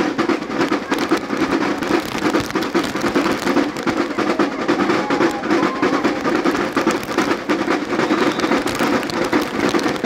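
Samba bateria (percussion band) playing a steady, dense groove of rapid drum and rattle hits with no letup.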